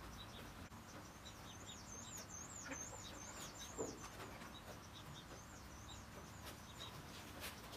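Faint birds chirping: a quick run of short, high notes starting about a second and a half in, thinning to a few fainter chirps, with a few soft handling clicks.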